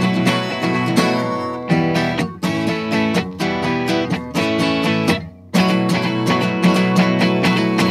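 Guitar music, acoustic guitar plucked and strummed, with a brief drop in loudness about five seconds in before it picks up again.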